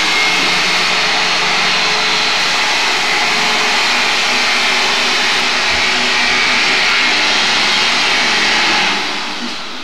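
Loud steady mechanical whir with a thin whine running through it, like an electric motor or fan, easing off near the end.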